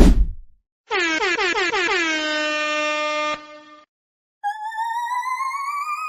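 Prank sound effects: a brief low thump, then an air horn blast held steady for about two and a half seconds after a quick drop in pitch at its onset. After a short silence, a warbling, slowly rising tone begins.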